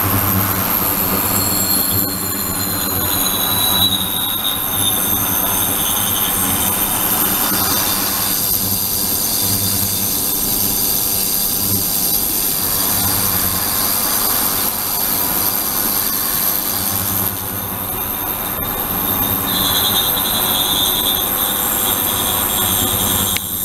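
72 kHz, 300 W ultrasonic bath running with a glass bottle of liquid in the water: a steady hum and hiss with high squealing tones. One tone glides downward in the first few seconds, and a high whine comes back near the end.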